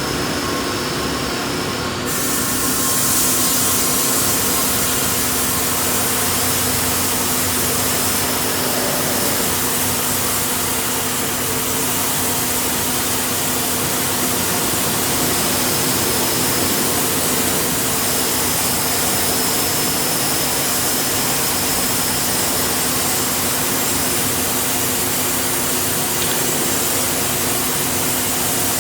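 Sawmill machinery running steadily as a sapele log is sawn: a loud, continuous drone with a steady hum, its high hiss shifting about two seconds in.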